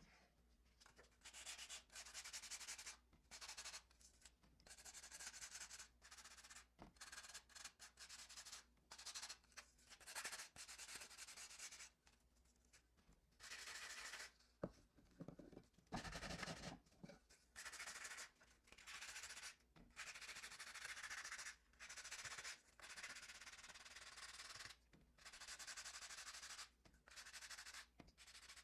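Something being rubbed across a white-cement casting in repeated hand strokes, like sanding or smoothing: irregular dry scratchy passes, each lasting from about half a second to two seconds, with short pauses between them.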